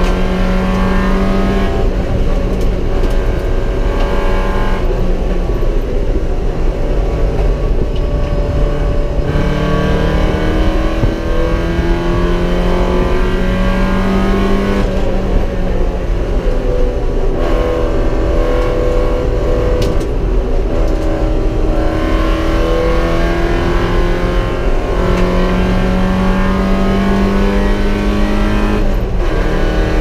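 Porsche 944 race car's four-cylinder engine heard from inside the cabin while lapping a track, pitch climbing under acceleration and dropping at each lift or gear change, over and over.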